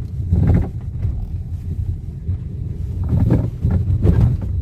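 2013 Hyundai Elantra crossing a speed bump, heard inside the cabin: a steady low road rumble with a few knocks, about half a second in and twice near the end. The knocking is the steering column noise that comes from a worn flexible coupling (damper kit) at the electric power-steering motor.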